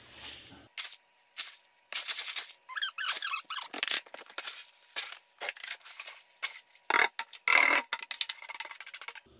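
Hard, dry coated soybeans pouring and scattering onto a mesh drying net, a rattling patter of many small beans from a plastic scoop and basin. Near the end the basin is tipped out, giving the loudest and longest pour.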